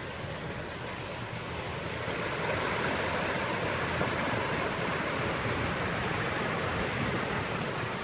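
Storm runoff rushing down a concrete drain channel into the ocean, with incoming surf washing back up it against the flow: a steady rush of water that grows louder about two seconds in.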